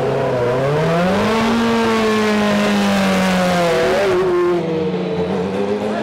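Historic Formula 1 car engine revving: the pitch climbs over the first second or so, holds high, then falls back about four seconds in and runs on at lower revs.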